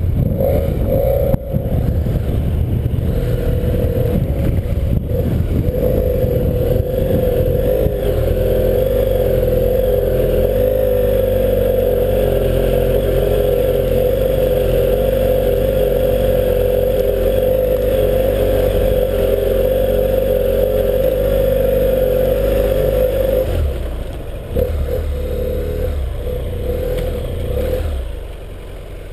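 BMW parallel-twin adventure motorcycle engine running under steady throttle on a gravel track, with low wind rumble on a helmet-mounted camera and gravel clatter under the tyres. The engine eases off about 23 seconds in and drops lower near the end as the bike slows.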